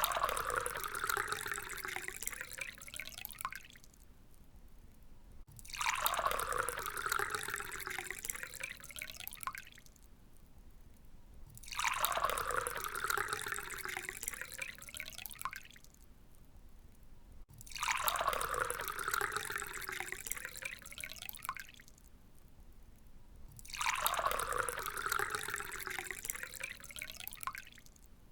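Water being poured into a glass, five separate pours about six seconds apart, each lasting a few seconds with a pitch that rises as the glass fills.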